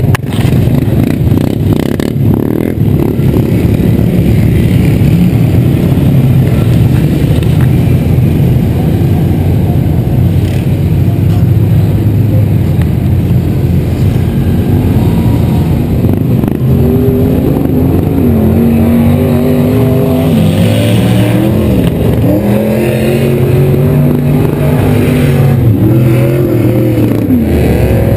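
Motor vehicle engines running with a steady, rough rumble. From about halfway, an engine revs up and down over and over, its pitch rising and falling every couple of seconds.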